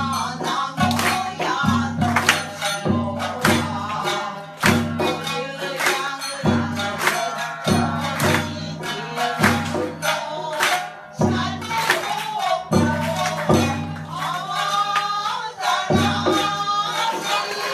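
Live traditional Japanese dance music: plucked shamisen with singing over it, punctuated by repeated sharp struck beats.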